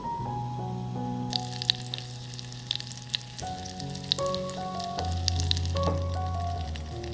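Butter melting in a saucepan over low heat, sizzling and crackling with scattered small pops that start about a second in.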